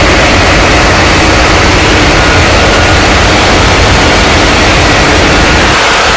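Loud, steady din of a ship's engine-room machinery running, diesel engines among it. It is a dense, even noise with a strong low end and a few faint steady tones over it.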